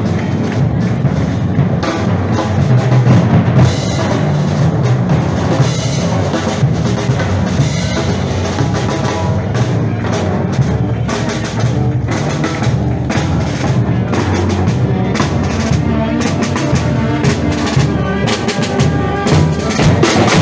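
Street marching band playing a march: bass drum and snare drum beat heavily under wind instruments.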